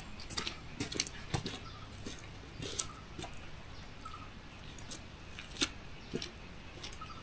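Herbs being picked by hand: irregular small snaps of stems and rustles of leaves, with a few faint short chirps.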